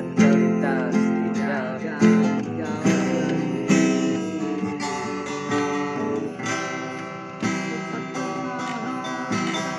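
Acoustic guitar being strummed, a strong chord stroke about once a second in the first few seconds, then lighter steady strumming.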